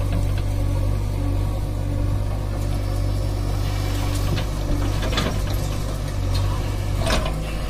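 JCB 3DX backhoe loader's diesel engine running steadily while its backhoe lifts a bucket of soil and swings it over a tipper truck. A few sharp knocks stand out about five seconds in and again near the end.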